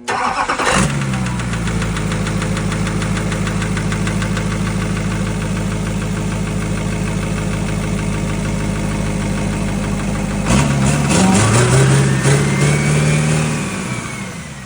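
Freshly rebuilt LBZ 6.6-litre Duramax V8 turbo-diesel firing up and running with a steady diesel clatter. About ten seconds in the engine note changes and a rising whine comes in, then it eases back near the end.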